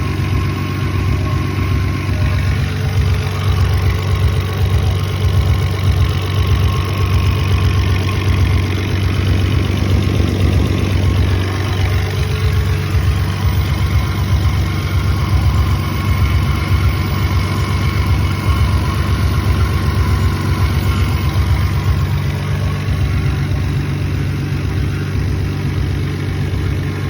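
Toyota 7M-GE 3.0-litre inline-six idling roughly, its steady low running broken by uneven pulses.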